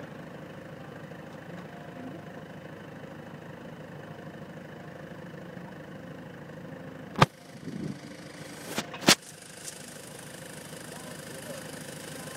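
A vehicle engine idling steadily. Three sharp metallic knocks and clanks come about seven to nine seconds in, from a hoisted car engine and its chain bumping against the vehicle as the engine is worked into the load space; the clanks are the loudest sounds.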